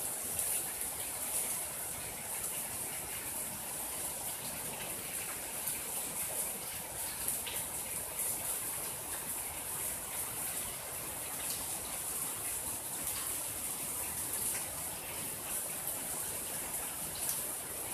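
Steady rain falling on a garden, an even high hiss with a few faint drip ticks scattered through it.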